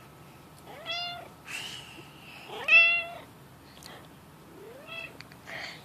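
A pet cat making odd short meow-like calls, three of them, each rising and falling in pitch, the middle one loudest. Softer breathy sounds come between the calls.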